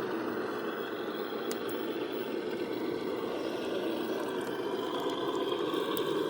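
Electric motor and 3D-printed gear drivetrain of a radio-controlled 6x6 Unimog model truck running steadily as it drives, with a slight rise in pitch near the end.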